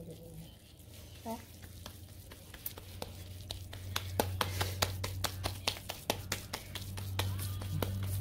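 Soft slaps of bare palms patting and pressing damp chicken and chana dal kabab mixture into patties. From about a third of the way in they come in a quick run, several a second, over a steady low hum.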